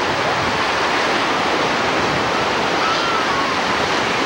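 Ocean surf breaking and washing through the shallows, a steady rushing noise.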